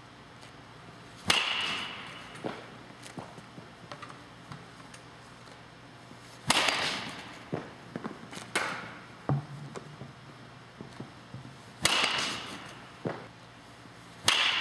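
Baseball bat hitting soft-tossed balls: four sharp cracks about five seconds apart, each with a brief ringing tail. Lighter knocks follow them.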